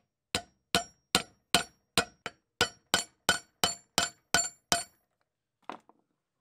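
About a dozen sharp metal-on-metal taps at an even pace, roughly two and a half a second, each with a short ringing tail, on the head of a rusty ratchet held in a vise while its faceplate is being worked loose. A softer knock follows near the end.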